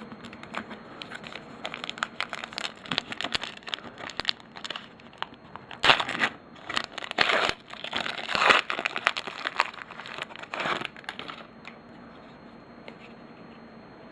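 A foil-wrapped trading card pack being torn open by hand, its wrapper crinkling and crackling. The rustling is loudest about six to nine seconds in and dies away near the end.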